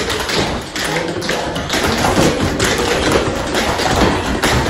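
Tap shoes' metal taps striking the floor in fast runs of sharp clicks and heavier stamps.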